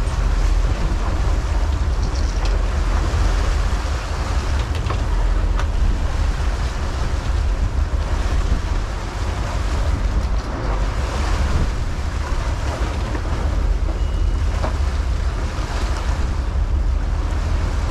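Wind buffeting the camera microphone as a steady low rumble, over the hiss and splash of water churning along the boat's stern.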